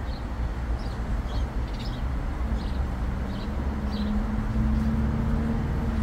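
City traffic rumble, with a vehicle's engine hum coming in about halfway through. Short faint bird chirps sound now and then over it.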